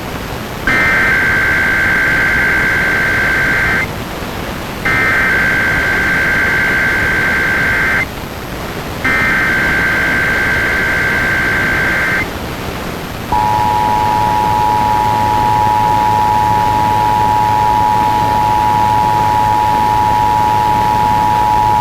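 Emergency Alert System required weekly test, heard over FM radio: the digital header sounds three times as bursts of screeching data tones, each about three seconds long with a second's pause between. Then the two-tone attention signal holds steady for about eight and a half seconds. A constant radio hiss runs underneath.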